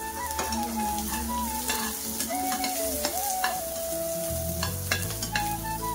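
Chicken offal and fresh bean curry sizzling in a karahi as it is stirred, the spoon knocking and scraping against the pan several times. A soft melody plays underneath.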